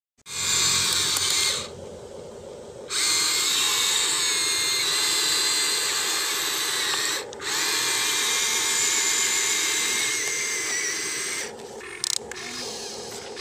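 Small electric motors of a Huina RC excavator whining as its boom and bucket move, in three spells of one to four seconds with short pauses between. The motors run more quietly near the end.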